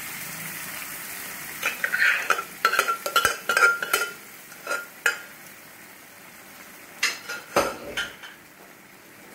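Onion-tomato masala sizzling in a frying pan while cooked chana dal is scraped and tipped into it from a metal pot: a metal spoon clinks and knocks against the pot, with a ringing clink, in a burst from about a second and a half in, and a few more knocks near the end.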